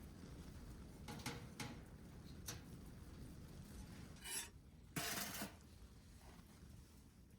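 Scattered faint clinks and scrapes of small objects being handled, with a louder scraping rush lasting about half a second about five seconds in.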